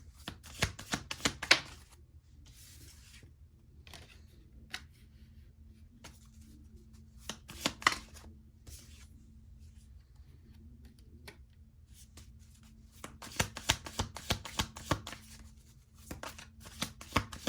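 A deck of tarot cards being shuffled and handled: a burst of quick card slaps and rustling near the start, a few more about halfway, and a longer run of rapid slaps near the end.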